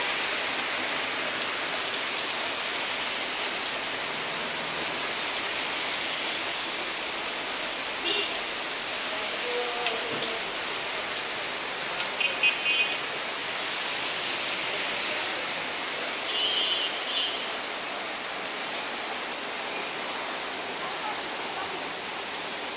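Steady rain falling, an even hiss without a break. A few short, faint pitched sounds come through it around the middle.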